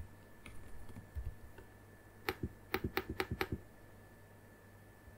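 Computer keyboard typing: a few single keystrokes, then a quick run of about ten just past the middle, over a faint steady hum.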